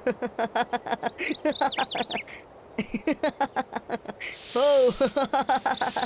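Cartoon sound effects: a quick run of chirpy notes, each sliding up or down in pitch, about seven a second, with a short hiss about four seconds in.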